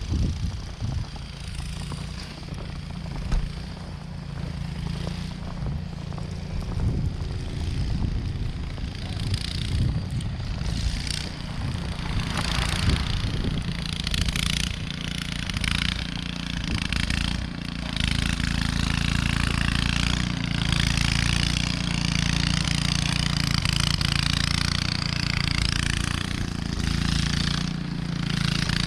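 An engine running steadily, growing louder and fuller about halfway through, with a hiss of noise over it.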